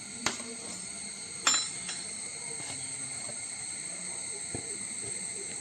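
Mangalore buns deep-frying in hot oil, a steady sizzle, with two sharp metallic clinks about a quarter second and a second and a half in and a few fainter ticks.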